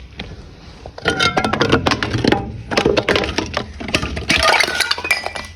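Glass being crushed: a dense run of sharp cracks and crunches with brief clinks and rings from the shards, starting about a second in.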